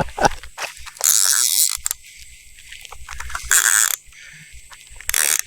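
Fishing reel ratcheting in three short bursts of high-pitched clicking, just after a striper has struck the live bait.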